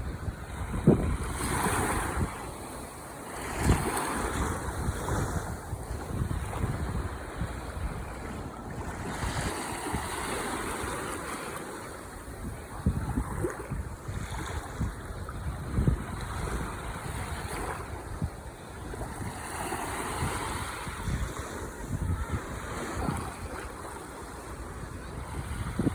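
Ocean waves breaking and washing onto the shore, the surf swelling and easing every few seconds, with gusty wind rumbling on the microphone.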